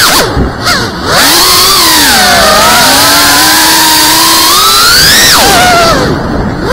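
FPV racing drone's brushless motors and propellers whining loudly, the pitch rising and falling with the throttle. It drops away briefly twice, soon after the start and near the end, then comes back.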